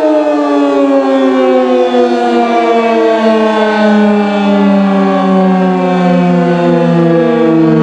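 Outdoor civil-defense tornado warning siren sounding a loud, steady wail whose pitch falls slowly throughout, winding down.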